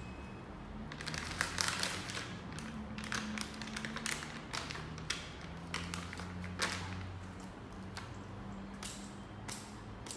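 Scattered taps, knocks and rustling from hands working on a badminton racket's handle as its grip is redone, over a faint steady low hum.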